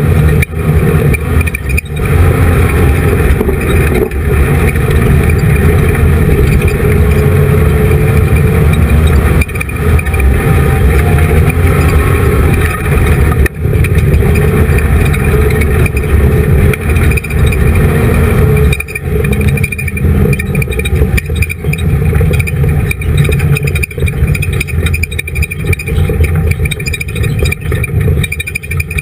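Dirt-track race car's engine heard from on board, running loud at racing speed, with brief lifts off the throttle every few seconds before it pulls hard again.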